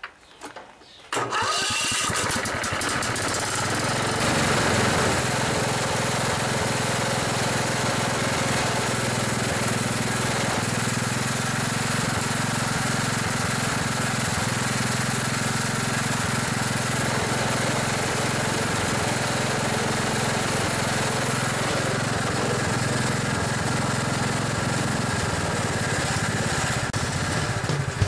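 Kohler Command 14 OHV single-cylinder engine on a riding mower running steadily. It comes in abruptly about a second in. It is running on a newly fitted fuel pump that is feeding fuel again.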